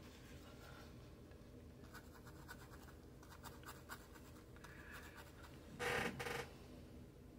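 Paintbrush bristles scrubbing and scratching over watercolour paper in faint, rapid strokes, with one louder rasp about six seconds in.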